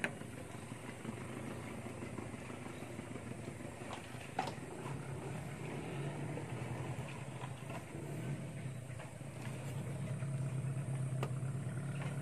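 Small boat's outboard motor running, with a steady low hum that grows louder from about five seconds in. A couple of short knocks stand out, one at the start and one a little over four seconds in.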